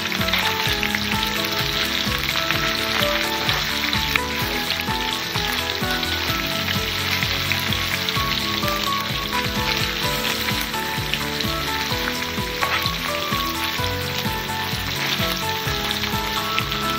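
Cubes of paneer sizzling steadily as they shallow-fry in hot oil in a pan, with a few faint clicks of a metal spoon turning them.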